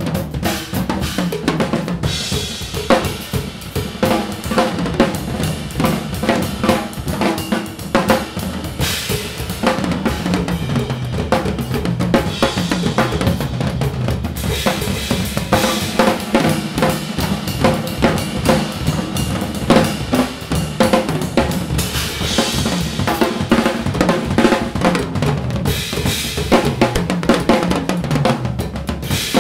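Two drum kits played together in an improvised duet: dense, continuous strokes on snare, toms and bass drum, with tom runs and cymbal washes that swell and fade several times.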